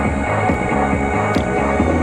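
Yosakoi dance music playing over a loudspeaker at a steady level, with a running bass line under pitched melody notes.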